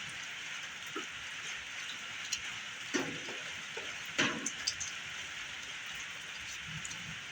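A steady rain-like hiss, with a few short knocks and handling noises about 1, 3 and 4 seconds in.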